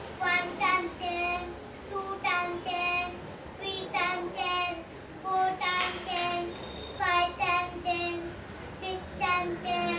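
A young deaf child's high voice chanting a long run of short, sing-song syllables, counting out the tens toward seventy.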